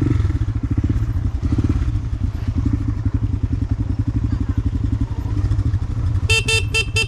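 Motorcycle engine running steadily at low speed, its exhaust pulsing evenly. Near the end a horn gives four short toots in quick succession.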